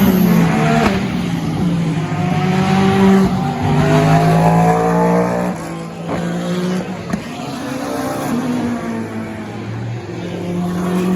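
FIA WEC endurance race cars passing trackside one after another, their engines revving up through the gears with the pitch rising and then dropping at each upshift. There is a short sharp crack about seven seconds in.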